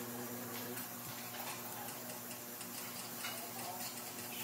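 Quiet room tone: a steady low electric hum with faint, irregular light ticks and clicks over it.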